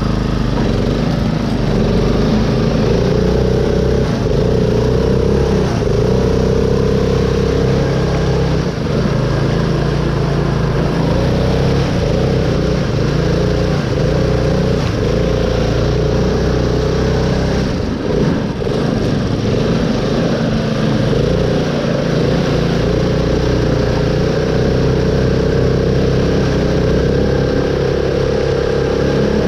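Custom mud lawn mower's small engine running under load, its pitch rising and dipping again and again as it is worked through mud.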